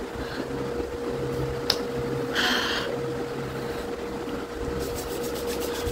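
Steady hum and room noise at one constant pitch, with a short breath noise about two and a half seconds in and a couple of small clicks.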